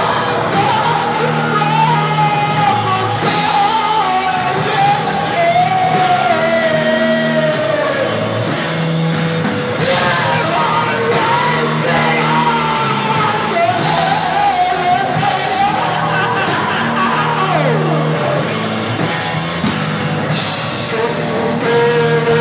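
Live rock band playing: distorted electric guitar, electric bass and drum kit with cymbals, with a voice singing over it.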